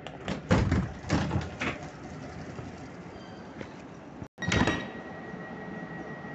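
Sliding passenger door of a PKP Intercity ED160 (Stadler FLIRT) electric train being opened, with a quick run of clunks and thuds in the first two seconds. Another loud knock comes about four and a half seconds in, after which a steady high-pitched tone sets in.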